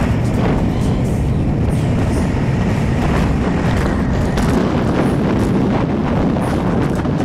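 Steady, loud wind rushing over the microphone of a camera mounted on a bicycle descending a hill at speed.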